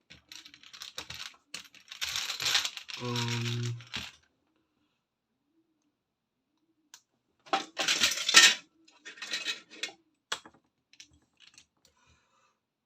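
LEGO bricks rattling and clicking as loose pieces are handled and sorted through, in two bouts. The second bout, starting about halfway through, is the louder one. It is followed by a few scattered single clicks. A brief hummed voice comes in about three seconds in.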